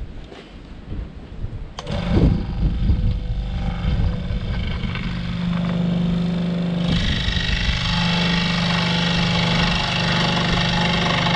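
Benchtop scroll saw switched on about two seconds in and running with a steady motor hum as 18 mm plywood is fed into its blade. The cutting noise turns harsher about seven seconds in.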